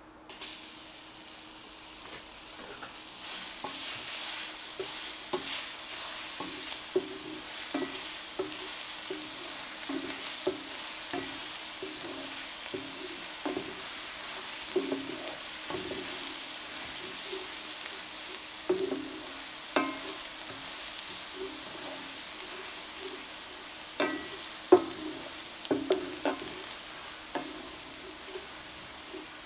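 Butter sizzling and foaming as it browns in an enameled cast-iron Dutch oven, while a wooden slotted spatula stirs and scrapes across the bottom of the pot in repeated strokes. The sizzle comes in about half a second in and grows louder about three seconds in; a few sharp knocks come near the end.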